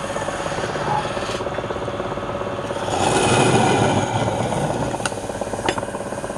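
Wood lathe running with the spinning workpiece being worked, a steady machine noise with a fine rapid chatter that swells for about a second midway, and two sharp clicks near the end.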